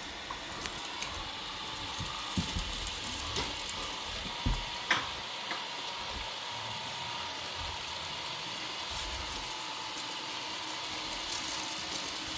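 Deebot N79 robot vacuum running steadily as it picks up scattered rice, its motor giving a constant whir with a few sharp clicks, the loudest around the middle.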